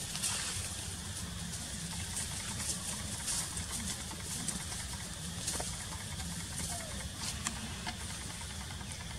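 Outdoor background noise: a steady low rumble under a high hiss, with scattered faint clicks and crackles.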